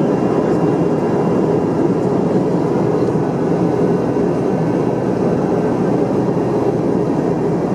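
Steady jet-airliner cabin noise of an Airbus A321 in flight: an even, unbroken roar of engines and airflow heard from inside the passenger cabin, with a faint steady hum on top.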